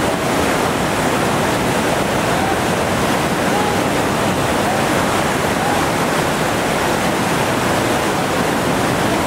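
Steady rush of a big whitewater rapid at high water, the Gauley River pouring over Sweets Falls at 4,700 cubic feet per second.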